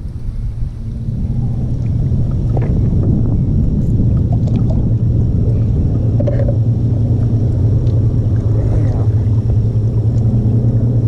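A steady low mechanical hum, like a small motor running, that swells in over the first second and then holds even, with a few faint light ticks on top.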